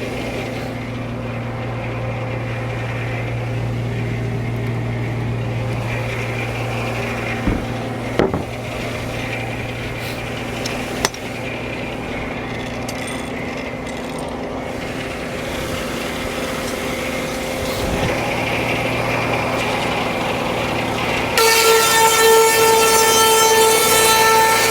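Frick No. 1 circular sawmill with its drive engine running steadily, a few knocks in the first half. About three seconds from the end the saw blade bites into the log, and a loud, ringing whine of the cut takes over.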